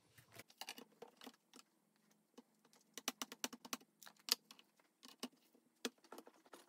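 Light, irregular tapping and clicking of small hard craft pieces being handled on a work desk, with a quick run of clicks about three seconds in.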